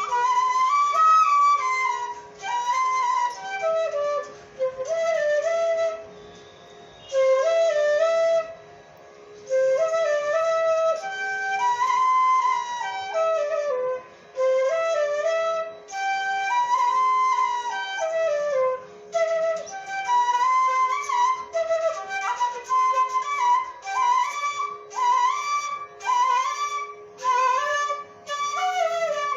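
An instrumental melody in Raga Hamsadhwani on a flute-like instrument, in phrases of stepped and gliding notes broken by short pauses, over a steady drone note.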